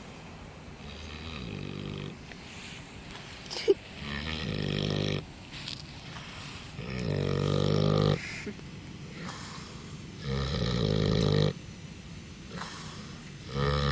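Wild boar snoring in its sleep: pitched, rasping snores about every three seconds, each about a second long, with one sharp click about four seconds in.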